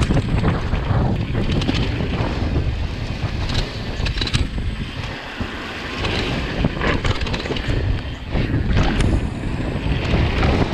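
Wind buffeting the microphone of a GoPro HERO7 Black on a mountain bike descending a trail, mixed with the rumble of tyres on dirt and wooden boardwalk and the rattle of the bike, with sharp knocks here and there.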